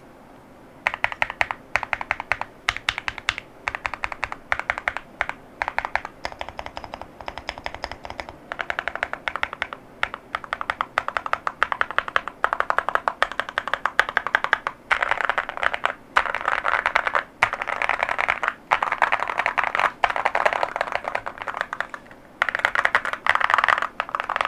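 Fast typing on an Evoworks Evo80 mechanical keyboard with Keygeek Oat linear switches and ceramic keycaps, a dense run of sharp clacks starting about a second in, broken by brief pauses.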